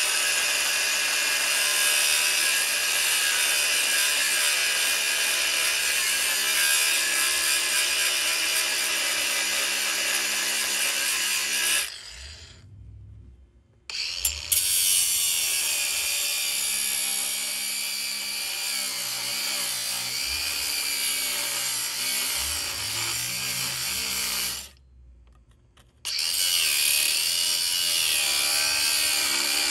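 Electric power tool running steadily under load, its pitch wavering slightly, breaking off twice: about twelve seconds in and again near twenty-five seconds.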